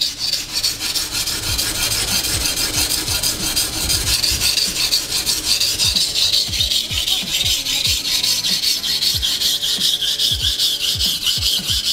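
Japanese petty knife blade ground back and forth under heavy hand pressure on a coarse, sandy Naniwa waterstone: a steady gritty rasping in rapid, even strokes, grinding steel away to take out a chip in the edge. It stops suddenly at the end.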